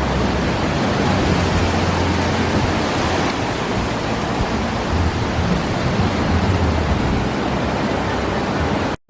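Steady rush of ocean surf, with wind rumbling on the microphone. It cuts off abruptly at the very end.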